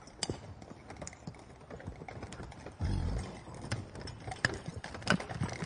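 A horse trotting on sand: irregular soft hoofbeats and clicks, with one heavier low thud about three seconds in.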